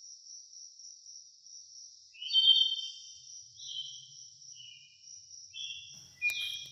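Faint steady high-pitched insect trill, joined from about two seconds in by several short, high chirps.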